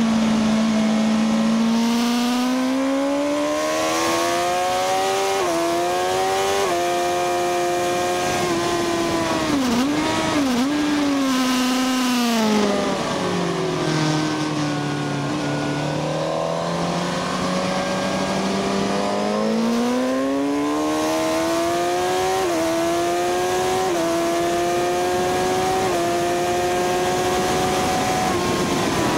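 Sport motorcycle engine heard onboard at track speed, its pitch climbing hard through the gears with short steps at each shift. About ten seconds in it drops with a few quick blips as the bike brakes and downshifts for a corner, stays low through it, then climbs again through several more shifts.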